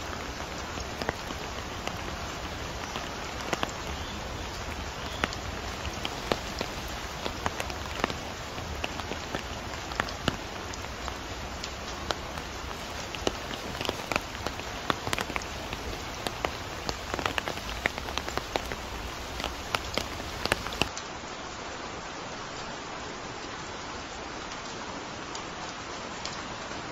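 Steady rain falling, with frequent sharp drops landing close by. About 21 seconds in, it changes to a smoother, softer rain hiss with only a few close drops.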